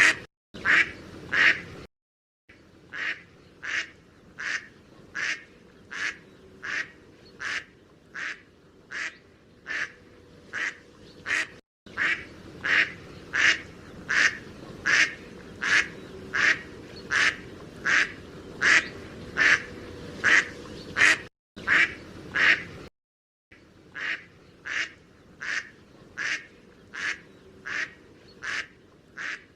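Mallard duck quacking over and over in an even rhythm, about one and a half quacks a second. The run breaks off into brief silence a few times.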